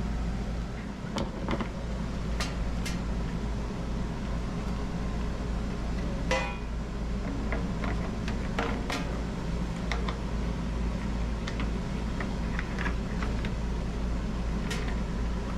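Scattered clicks and knocks of plastic shop-vac parts being handled and fitted, such as a caster going onto the base, over a steady low hum.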